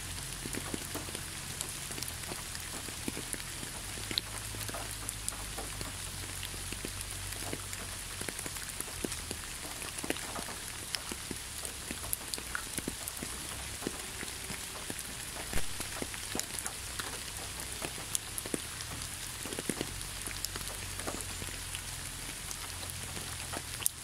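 Steady rain falling, with many separate drops striking close by as sharp little ticks over an even hiss.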